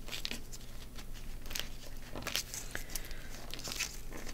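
Paper pages rustling, with scattered short crackles and light clicks, as punched pages are pressed onto a Cinch binder's open wire rings.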